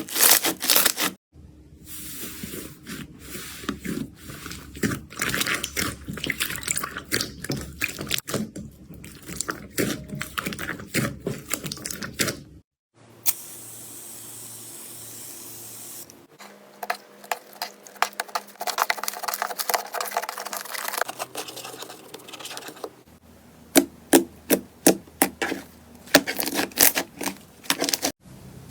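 Slime being squished, stretched and poked by hand, with dense sticky clicks, crackles and squelches. It comes as several short clips in a row, each with its own texture, and there is a steadier hissing stretch in the middle.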